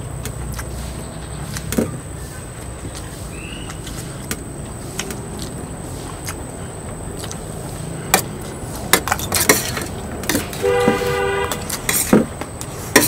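Steady traffic rumble with sharp clicks and knocks scattered through the second half. A vehicle horn sounds once for about a second near the end.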